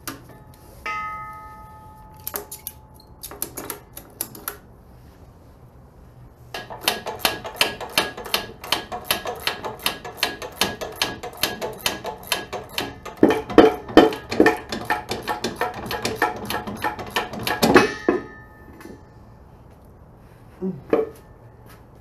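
Ratchet strap being cranked tight: a long run of rapid clicks from the ratchet buckle, about four a second, lasting some ten seconds. A few loose clicks and a short metallic ring come before it.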